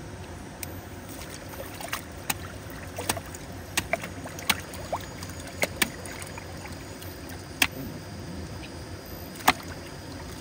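Water sloshing and trickling, with about a dozen sharp clicks or small splashes at irregular intervals over a steady low background noise.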